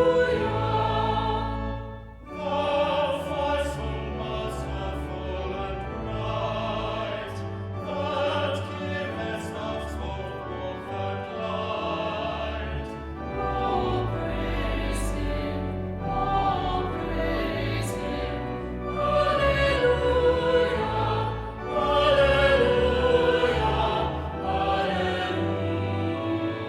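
Classical vocal music: singing voices hold long notes with vibrato over an instrumental accompaniment, pausing briefly between phrases about two seconds in and again near twenty-one seconds.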